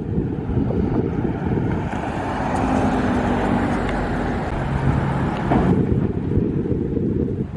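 Strong wind buffeting the microphone throughout, with a car passing: its tyre and engine noise swells about two seconds in and cuts off sharply near the six-second mark.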